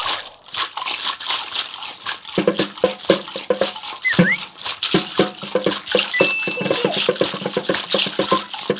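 Shakers made from bunches of plastic bottle caps rattling in a steady rhythm. About two and a half seconds in, a hand drum joins with regular strokes.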